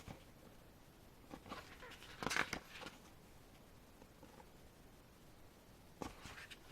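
Quiet paper handling: a few brief rustles and soft taps as the pages of a photo book are turned, the loudest cluster a couple of seconds in and another near the end.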